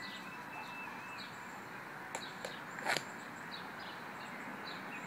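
Outdoor ambience with small birds chirping over and over against a steady hiss. A little past two seconds in come three sharp clicks, the last and loudest just before three seconds.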